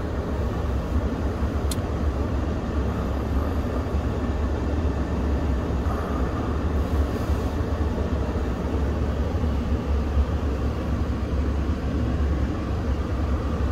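Steady low rumble and fan hiss inside the cab of a 2021 Nissan Titan pickup with the truck running and its climate fan blowing, with a light tap about two seconds in.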